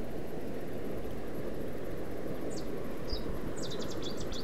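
Steady low rush of wind and rippling water, with a small bird's quick run of high chirps near the end.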